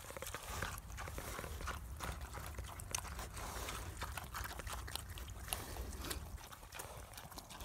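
Pigs eating grain feed off the ground, with irregular crunching, chomping chews.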